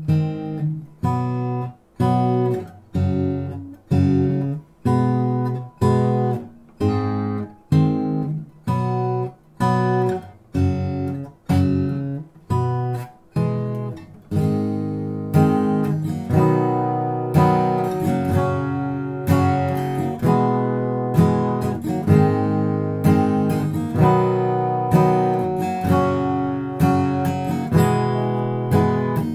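Background music: acoustic guitar strummed in a steady rhythm, the playing growing fuller and more sustained about halfway through.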